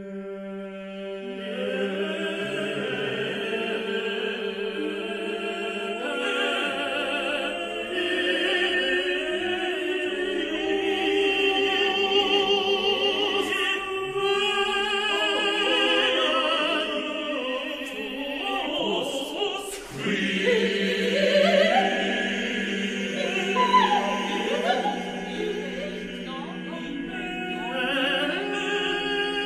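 Unaccompanied choir singing dense, sustained chords in a contemporary choral piece, entering out of silence right at the start. About two-thirds of the way through there is a sharp accent, after which the voices slide up and down in pitch before settling back into held chords.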